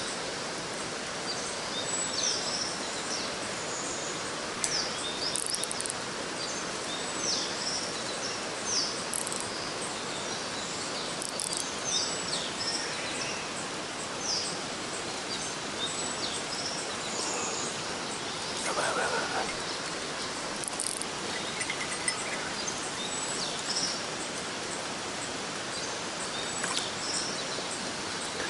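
Steady rush of a mountain stream, with many short high bird chirps scattered through it and a brief louder noise about two-thirds of the way in.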